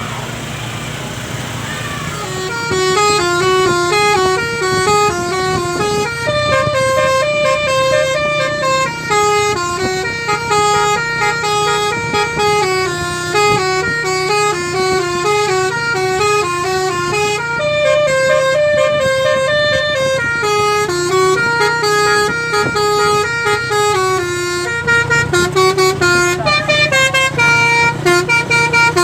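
An Indonesian bus's basuri telolet horn playing a melody of stepping notes, starting about two and a half seconds in, over the steady hum of the bus's engine. Near the end the notes turn into quick, choppy pulses.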